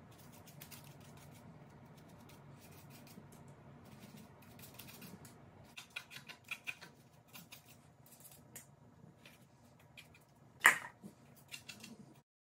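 Faint handling noise: scattered light clicks and rustles over a low hum, with one sharper click about two-thirds of the way through.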